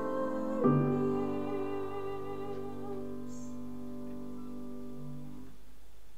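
A girl's solo singing voice finishes a held note with vibrato about half a second in, as a final piano chord is struck; the chord then rings on and slowly fades away over about five seconds.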